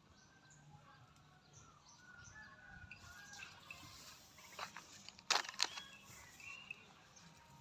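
Farmyard ambience with small birds chirping faintly throughout, and two sharp clicks or knocks close together a little past five seconds in.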